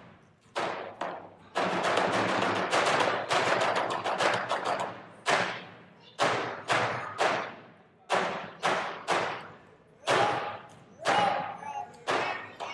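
Music made of sharp drum strikes that ring and fade, some struck singly and some in quick runs, with faint pitched sounds in between.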